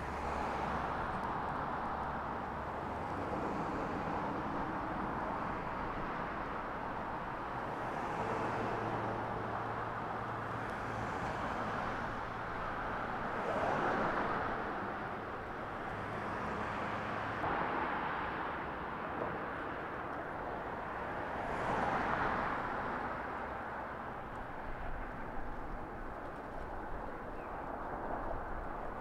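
Road traffic: a steady rush of cars going by, swelling as individual cars pass, about four times, with a low hum for several seconds in the middle.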